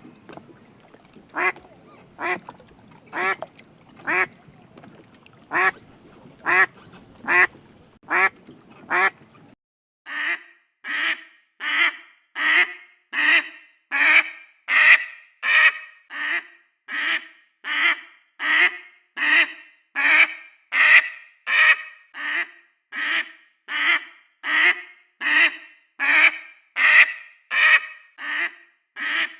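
Duck quacking in a series of short quacks, about one a second over a faint background hiss at first; about ten seconds in, a cleaner run of quacks follows at about two a second.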